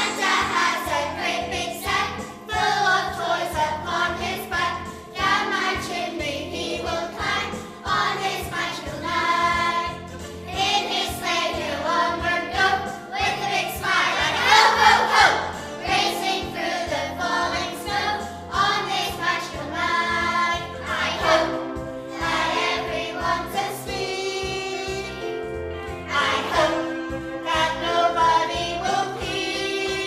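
A children's choir singing together over an instrumental accompaniment.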